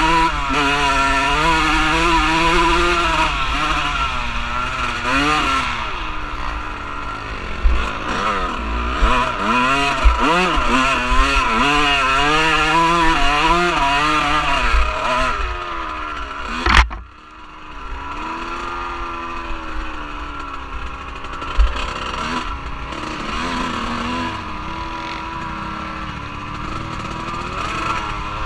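Off-road vehicle engine running under way, its pitch rising and falling again and again as the throttle is worked. About seventeen seconds in a sharp click cuts in and the sound suddenly gets much quieter, with the engine then running lower and steadier.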